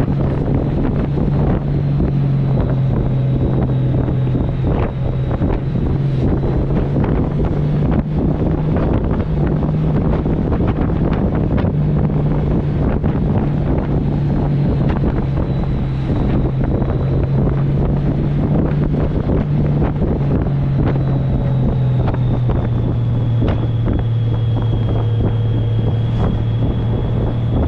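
Honda Gold Wing's flat-six engine running steadily at road speed, its note shifting a little with the throttle, under heavy wind noise on the microphone.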